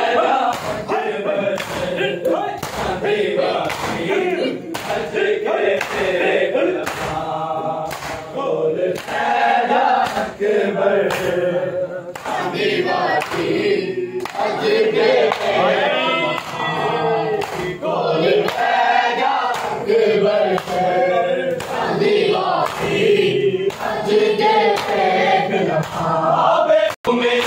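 A group of men chanting a noha together in unison, with their hands slapping their bare chests in time, keeping a steady rhythmic beat.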